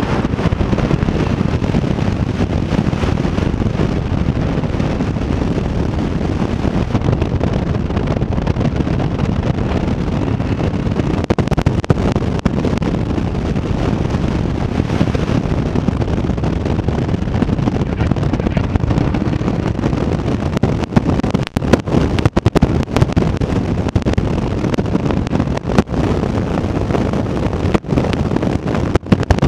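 Wind rushing over the microphone of a camera on a Chevrolet Corvette C7 Z06 driven at speed, with its supercharged V8 rising and falling underneath. Several brief buffets and dropouts come in the last third.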